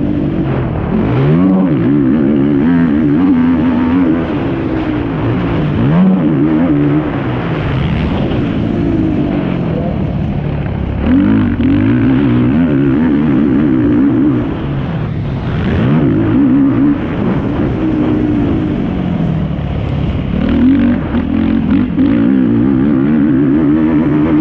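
Yamaha YFZ450R quad's single-cylinder four-stroke engine under race load, revving up and dropping back over and over as it accelerates, shifts and backs off.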